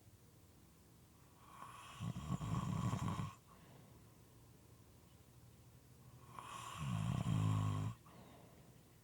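A sleeping person snoring moistly: two long snores about five seconds apart, each lasting under two seconds, with quiet breathing between them.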